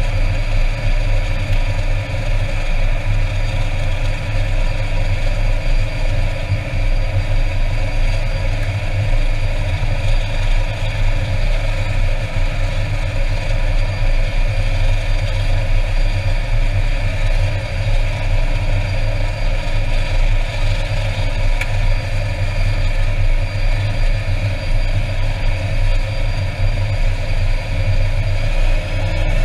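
Air Tractor 402B's turboprop engine running steadily while the aircraft stands still, heard from inside the cockpit: a steady turbine whine over a low rumble. A rising whine starts right at the end.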